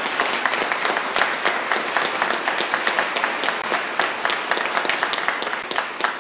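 A congregation applauding: many hands clapping together in a dense, steady patter.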